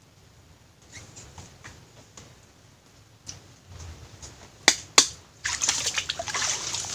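Faint small ticks and splashes of hands working in shallow muddy water, then two sharp clicks about two-thirds in, followed by loud sloshing and splashing as a person wades through the shallow muddy water.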